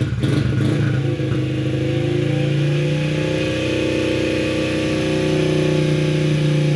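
Honda CRF50F's small four-stroke single-cylinder engine running at a steady, slightly high idle just after firing up with the choke off. The owner puts the high idle down to the idle adjustment screw being out of adjustment.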